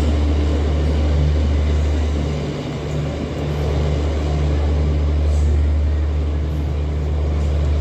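Diesel generator sets of an Indian Railways End-On-Generation (EOG) power car running steadily: a deep, constant drone with a low hum. It dips briefly about two and a half seconds in, then carries on.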